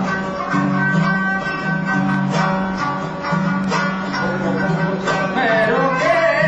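Balochi folk music: a long-necked plucked lute strums a steady low drone, re-struck about once a second, under a melody that bends in pitch near the end.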